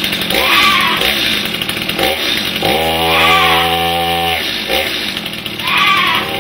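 Chainsaw engine revving up and down several times, with one longer steady rev in the middle.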